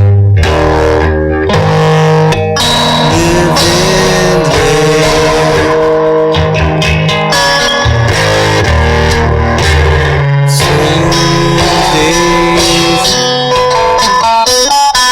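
Rock music led by guitar, with a bass guitar underneath.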